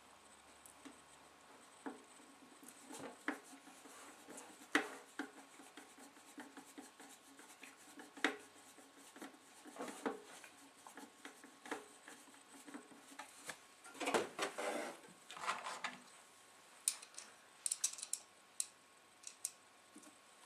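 Scattered light clicks, scrapes and rattles as a metal equipment casing and its small screws are handled and fitted by hand. There is a cluster of scraping in the middle and a quick run of sharp clicks near the end.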